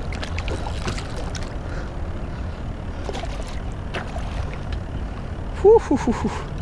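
Water splashing and slapping as a hooked tarpon thrashes at the surface beside a kayak, with scattered sharp splashes over a steady low rumble. A brief voice-like exclamation comes near the end.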